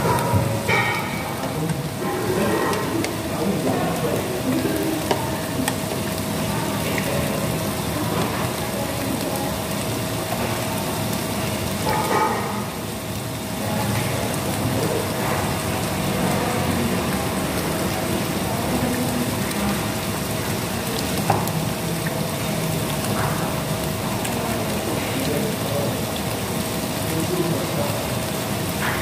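Meat sizzling steadily on a tabletop grill pan, a continuous hiss, with a faint steady hum underneath and a few short clinks of metal utensils against the pan.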